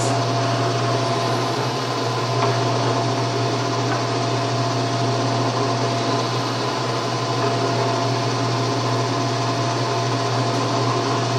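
Benchtop drill press running steadily with a constant motor hum and whine while a Forstner bit bores shallow flat-bottomed holes in a wooden bar.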